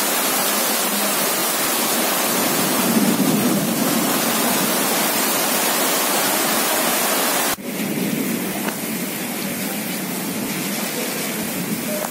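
Heavy rain pouring steadily onto waterlogged ground. About seven and a half seconds in it briefly drops out, then goes on a little quieter.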